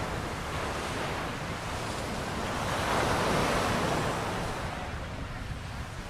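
Ocean surf washing onto the beach, with one wave swelling louder a little before halfway and easing off, and wind buffeting the microphone.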